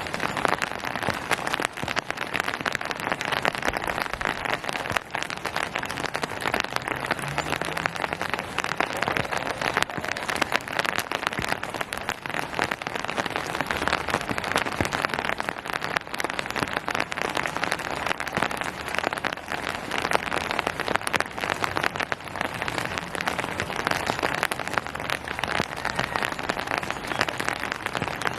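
Steady rain falling, a dense, even patter of drops striking surfaces.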